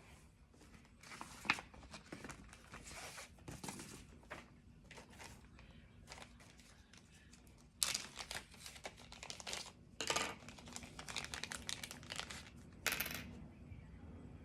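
Handling noise from embroidery work: irregular scratchy rustles, crinkles and rasps of thread, fabric and kit materials being handled, with a few sharper, louder ones in the second half.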